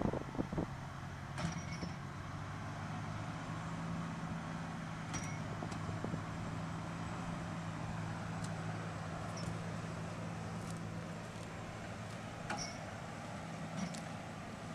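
Heavy diesel engine running steadily at a constant pitch, with a few faint clicks.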